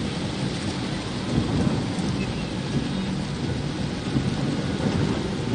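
Heavy rain pouring on a car's windscreen and roof, heard from inside the cabin: a steady, dense hiss with a low rumble underneath.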